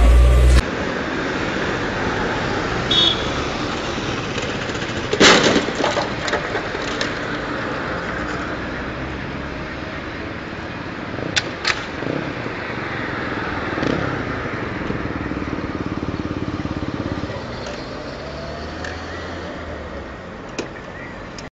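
Street traffic noise, with one loud crash about five seconds in, as a motorcycle collides with an SUV; a few sharper clicks and knocks follow later.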